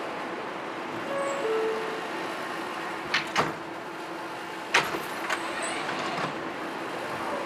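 New York City subway train with a steady running hum, broken by several sharp metallic clanks between about three and six seconds in, the loudest near five seconds.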